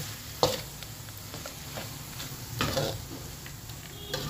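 Wooden spatula stirring grated raw mango, peanuts and curry leaves frying in oil in a metal kadai, with a steady sizzle underneath. Spatula strokes against the pan stand out, the loudest about half a second in and another near three seconds.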